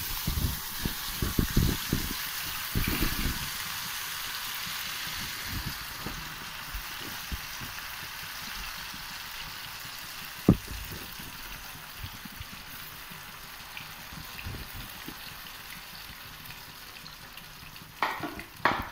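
Masala-coated potato slices deep-frying in hot oil: a steady sizzle, loudest at first with a few soft thumps as pieces are dropped in, slowly dying down. A sharp click about ten seconds in and a couple of knocks near the end.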